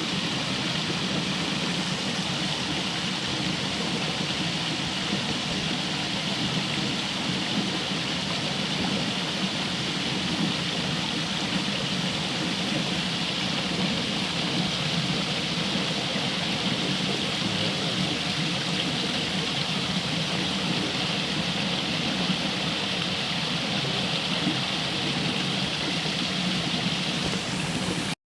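Steady rushing of a rocky river, water running over stones.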